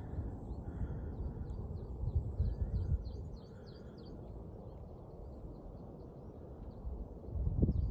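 Small birds chirping rapidly, many short high calls in quick succession, over an uneven low rumble that swells about two and a half seconds in and again near the end.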